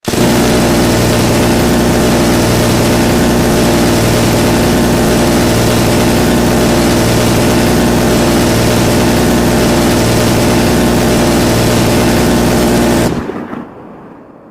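M134 minigun, a six-barrel rotary machine gun, firing one long continuous burst: a loud, steady drone of very rapid shots. It cuts off about thirteen seconds in and the sound fades away.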